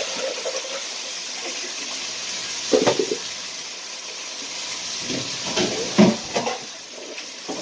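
Chicken searing in a frying pan, a steady sizzle, with a few short knocks and clatters about three and six seconds in.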